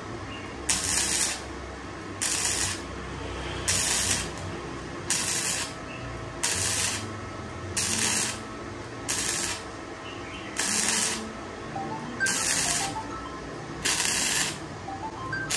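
Gasless flux-core MIG welder (ZARU MIG-300S) striking its arc in short bursts of about half a second, one roughly every second and a half, as thin sheet metal is tack-welded trigger pull by trigger pull.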